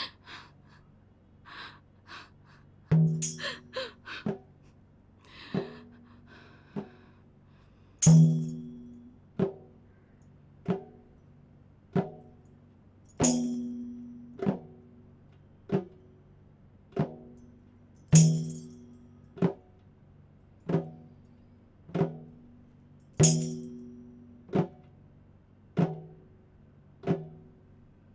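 Slow, even hand-drum rhythm: a low, ringing drum stroke about every second and a quarter, with every fourth stroke heavier and accompanied by a jingle, so the strong beat falls about every five seconds. It starts about three seconds in, after a few scattered light taps and jingles.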